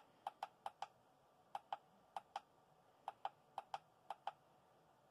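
Faint, sharp clicks of the menu buttons on a Venue Revolver Wash moving-head light's control panel being pressed, about fourteen presses, mostly in quick pairs, stopping a little after four seconds in.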